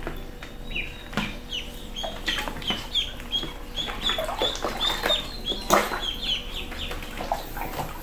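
Ducklings peeping: many short, high calls repeating several times a second and overlapping, with small splashes of water as they paddle.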